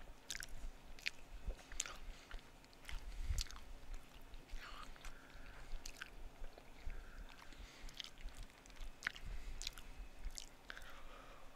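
A person chewing a mouthful of Philly cheesesteak casserole, with scattered wet mouth smacks and clicks picked up close by a headset microphone.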